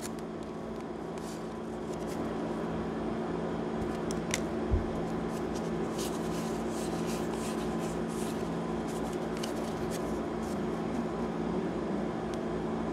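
Pokémon trading cards sliding and flicking against each other as they are sorted by hand, soft scattered clicks over a steady low hum.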